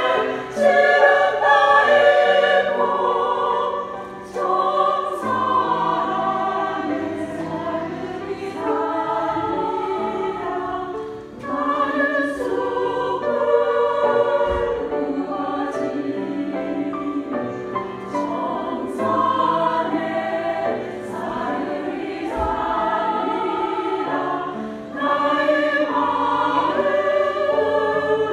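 Women's choir singing a slow Korean choral song in harmony, in long sustained phrases with short breaths between them.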